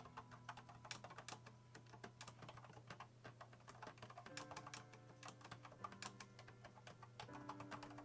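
Typing on an AlphaSmart portable word processor's keyboard: rapid, uneven key presses on its mushy keys.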